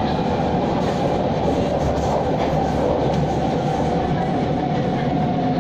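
Steady running noise inside an SMRT C651 train car cruising on elevated track: wheels on rail, with a steady whine and a few light clicks.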